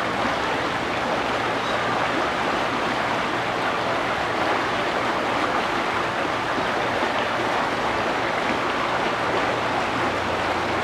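Steady rushing of water flowing and splashing over rocks into a pool, with no breaks.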